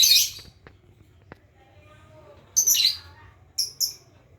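Lovebird giving shrill, harsh calls: a loud burst right at the start, another about two and a half seconds in, then two short sharp chirps. The bird is practising its ngekek, the long trilling song, and gives only short bursts of it.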